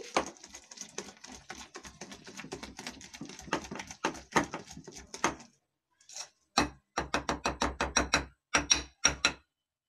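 Thick ground moong dal batter being beaten by hand in a glass bowl, giving quick wet slaps and clicks. After a short pause about halfway through, it settles into an even rhythm of several strokes a second. The beating works air into the batter so the fried ram laddoos come out soft and puffed.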